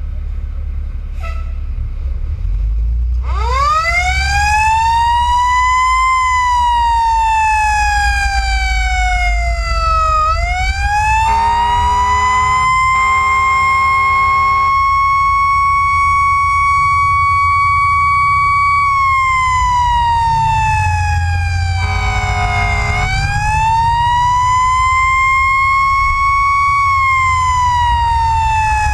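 Fire engine siren wailing, its pitch sweeping slowly up and down and holding high for several seconds in the middle. A deep horn sounds twice back to back about a third of the way in and once more later, over the low rumble of the moving engine.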